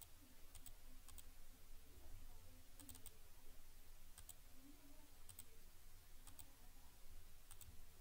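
Computer mouse clicking faintly and irregularly, a dozen or so single clicks, over a low steady room hum.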